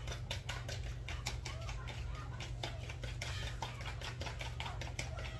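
Rapid, irregular clicking and crackling from gloved hands working cheese sticks through flour in a plastic bowl, with faint voices in the background.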